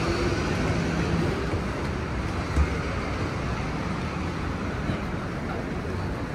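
Steady road traffic noise from buses and cars on the street beside the plaza, with a short low thump about two and a half seconds in.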